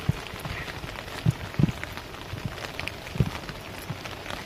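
Steady rain hiss with a few short, dull low thumps.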